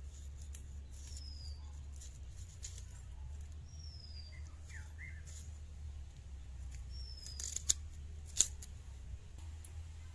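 A knife scraping and nicking the papery skin off a red onion held in the hand: small crisp scrapes, with two sharper clicks about three quarters of the way through. A bird repeats a short falling chirp every few seconds, over a steady low rumble.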